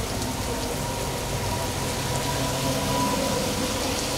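Heavy rain pouring onto a wet paved street, a steady dense hiss, with a motor vehicle's engine running underneath.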